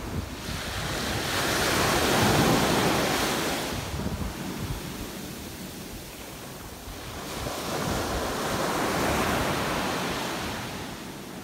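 Small ocean waves breaking and washing up a sandy beach at the water's edge. There are two waves, each a rush of surf that swells and fades: the first and loudest about two seconds in, the second near the end.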